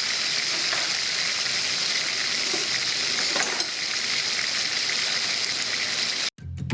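Chicken thighs sizzling steadily in hot oil in a frying pan, with a few faint pops. The sizzle cuts off abruptly near the end.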